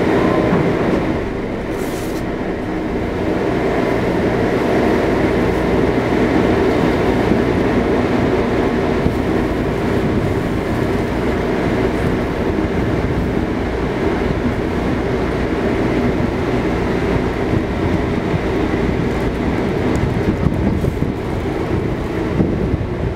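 Tour boat Marbella 3's engine running with a steady low drone, heard from its deck. It dips slightly about a second in, then holds steady.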